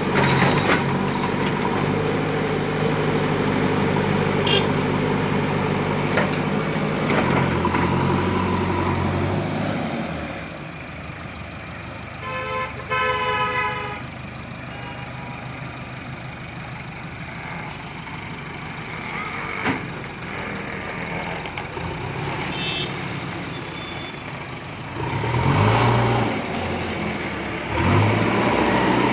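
Heavy diesel engine of earthmoving machinery running steadily, then dropping off about ten seconds in; a vehicle horn sounds briefly a couple of seconds later, and the engine revs up again near the end.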